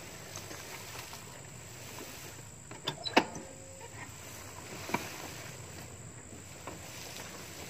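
A motor scooter being moved through tall grass: stems swishing against it, with a sharp clack from the scooter about three seconds in and a smaller knock about five seconds in.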